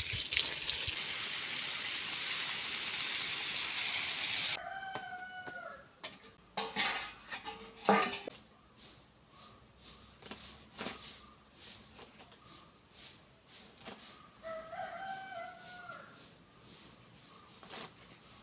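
A steady rushing noise that cuts off suddenly about four seconds in, then a rooster crowing twice, about ten seconds apart, with scattered clicks and a sharp knock between the crows.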